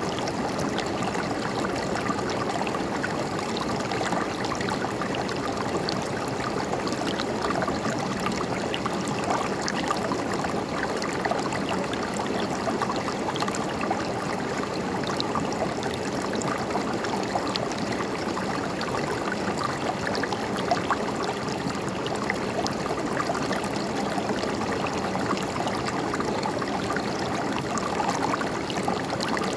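River water flowing steadily over rocks, a continuous rushing with small splashes and gurgles scattered through it.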